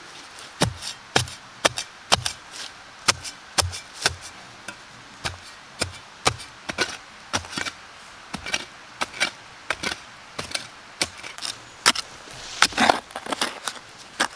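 Small steel spade chopping into turf and soil: repeated sharp strikes, irregular, about one or two a second, with a longer scrape near the end.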